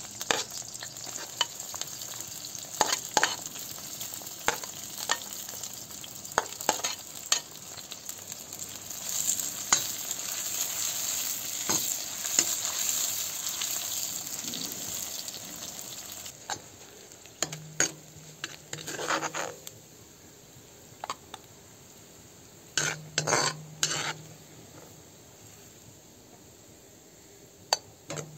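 Sliced onions sizzling in hot oil in a black wok, with a perforated metal ladle clicking and scraping against the pan as they are stirred. The sizzle drops away a little over halfway through, leaving a few short bursts of ladle scraping in the pan.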